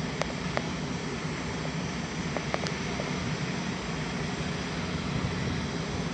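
Klemm KR805-3G drilling rig running steadily, with a few short sharp clinks in the first three seconds.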